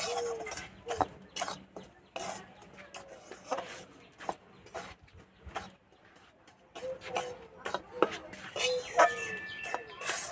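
Metal spatula scraping and knocking against a steel wok in repeated strokes as gram flour is stirred and dry-roasted. A hen clucks now and then, near the start and again about seven to nine seconds in.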